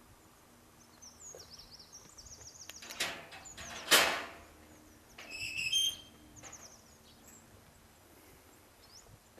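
Songbirds chirping in short repeated phrases, with a sharp knock about three seconds in and a louder bang about a second later, then a brief high squeak.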